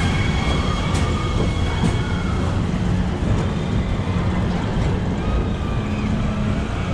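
Tomorrowland Transit Authority PeopleMover ride car running along its track: a steady low rumble with a couple of faint clicks.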